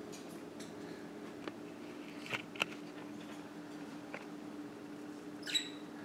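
Budgerigars giving a few short, high chirps, two close together a little over two seconds in and a clearer one near the end, over a steady low hum.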